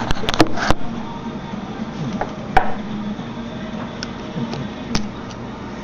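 Small sharp clicks and taps of a pry tool working at the iPhone 3GS's ribbon-cable connector, trying to pop it off: a quick cluster in the first second, then a few scattered ones.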